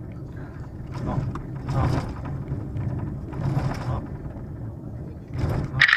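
Inside a car's cabin on a rough gravel road: a steady low drone of engine and tyres, with repeated clattering and rattling as the car jolts over the stones. The loudest, sharpest knock comes just before the end.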